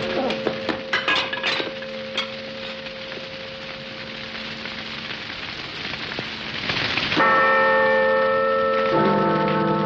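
Large church bells in a bell tower, their hum lingering faintly under a steady crackle of fire, after a few sharp clanks in the first two seconds. About seven seconds in a bell is struck loudly and rings on, and another joins with a lower peal near the end, as the bells are set swinging by their ropes.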